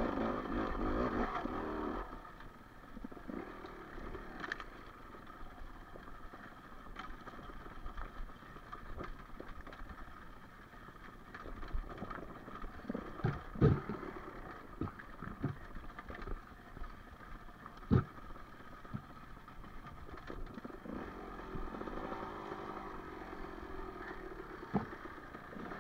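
Enduro dirt bike engine running, then falling away about two seconds in. After that come scattered knocks and clatter, the loudest a cluster of sharp knocks about halfway through and a single sharp knock a few seconds later, over a faint engine drone.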